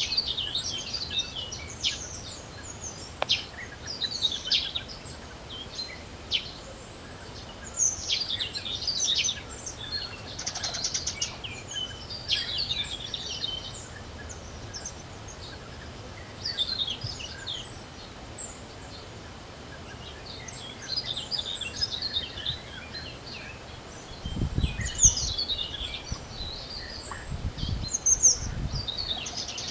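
Several spring songbirds singing and calling over one another in short chirping phrases, with a rapid trill about ten seconds in. Near the end, low gusts of wind rumble on the microphone.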